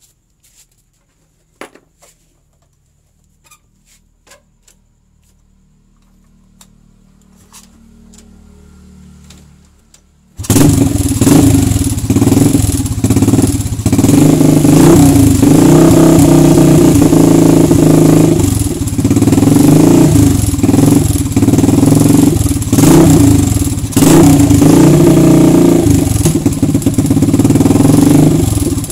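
A few faint clicks, then about ten seconds in a small single-cylinder four-stroke engine of an old Honda underbone motorcycle starts suddenly and runs loudly, its revs rising and falling.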